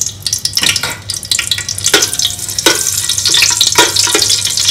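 Whole spices (bay leaves, cinnamon, cloves, cardamom) sizzling in hot coconut oil mixed with vegetable oil in a metal pot, the sizzle growing louder toward the end. A metal spoon stirring them clinks and scrapes against the pot several times.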